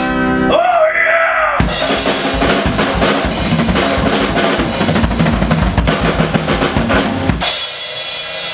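Acoustic drum kit played hard: rapid hits on the drums and cymbals starting about two seconds in, ending with a cymbal crash that rings on near the end.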